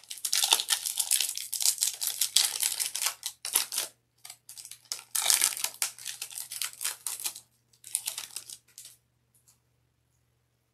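Foil wrapper of a trading-card pack being crinkled and torn open by hand, in three spells of crackling that stop about nine seconds in.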